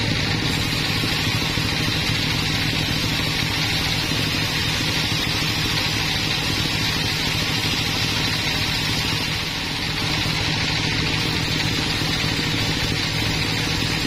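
Band sawmill running with a steady mechanical drone and low hum as its blade saws lengthwise through a large log.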